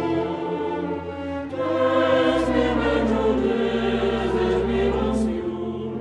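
Background music: a choir singing long sustained notes, with a deep bass note coming in about two seconds in.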